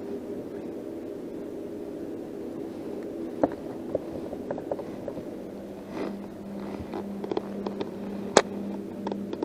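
Light clicks and knocks of a caught crappie and fishing gear being handled in a boat, with one sharp knock near the end, over a steady mechanical hum that gains a second steady tone about five seconds in.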